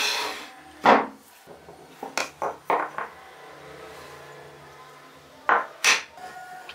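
Carved wooden parts knocking and scraping on a wooden workbench. A scrape as the wooden body slides across the bench at the start, then a sharp knock just under a second in. A few light taps follow around two to three seconds, and two more knocks come near the end as a turned wooden piece is fitted into the body.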